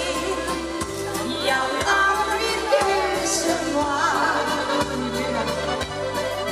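A woman singing a Dutch schlager song live through a microphone and PA over backing music with a steady bass line, her voice wavering in vibrato on held notes.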